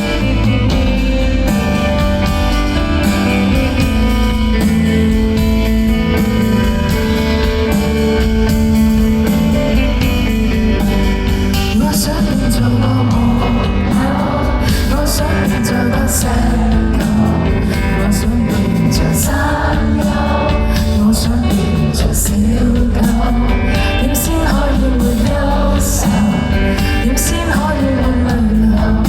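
Live band playing an indie pop song, with singing over the music.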